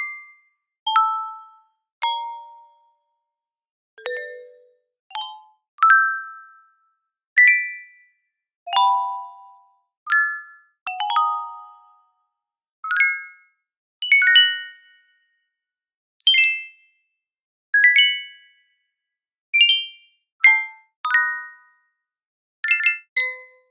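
A run of about twenty separate notification chime sound effects, roughly one a second with silence between them. Each is a bright bell-like ding or a quick two- or three-note figure at a different pitch that rings out and fades within about half a second.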